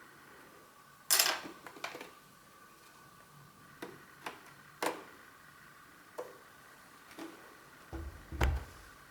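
Items from an unboxed 3D printer being handled and set down on a hard surface: a scatter of sharp clicks and knocks, the loudest about a second in, with a heavier knock and low thump near the end.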